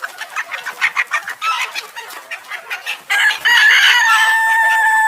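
Chickens clucking in quick short calls, then about three seconds in a rooster crows loudly, one long call that holds its pitch and drops at the end.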